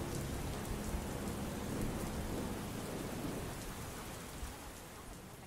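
Recorded rain ambience: a steady hiss of rain with scattered drop ticks and a low rumble underneath, fading out gradually over the last couple of seconds.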